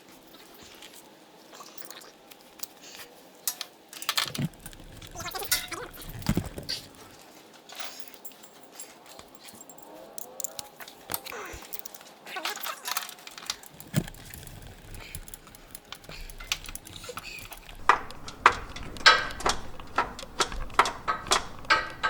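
Hand tools on the starter's mounting bolt: a ratchet wrench clicking and metal clinking as the bolt is worked loose. The clicks come thick and fast in the last few seconds.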